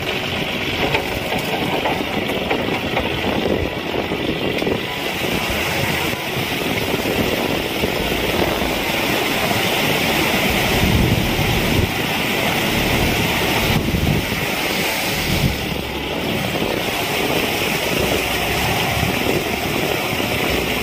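John Deere 5050D tractor's three-cylinder diesel engine running steadily under load, pulling a rotavator through wet paddy mud.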